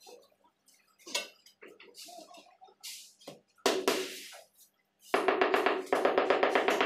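A mallet tapping rapidly on a large floor tile, about seven quick strikes a second from about five seconds in, bedding the tile into the mortar beneath it. A single sharp knock comes a little earlier, as the tile is set down.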